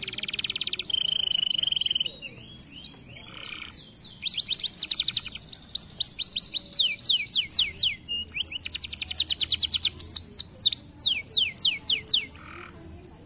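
Domestic canary singing: fast trills of rapidly repeated high notes, each sweeping downward, strung together in long rolls, with a quieter spell of softer notes about two to four seconds in.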